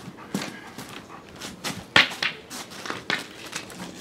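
East European Shepherd puppy scuffling on wet paving stones as it grabs and tugs a bite toy on a stick, with irregular scrapes and footfalls, the loudest about two seconds in.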